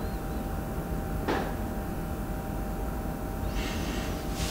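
Steady low room hum with a faint steady tone, broken by a short brushing noise about a second in and a soft hiss near the end.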